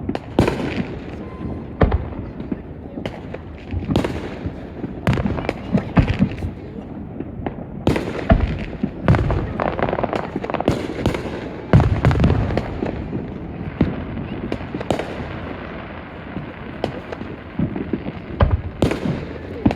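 Fireworks exploding in quick, irregular succession, sharp bangs and crackles mixed with deeper booms, some close by, some farther off.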